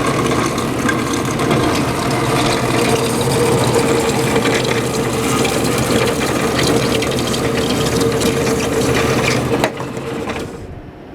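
Ramco RS-90P industrial metal bandsaw running with a steady mechanical hum and a constant mid-pitched tone. Near the end there is a click, and the sound quickly dies away as the saw is switched off and runs down.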